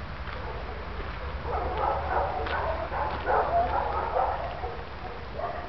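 Small dog barking and yapping for about three seconds, starting about a second and a half in, over a low wind rumble on the microphone.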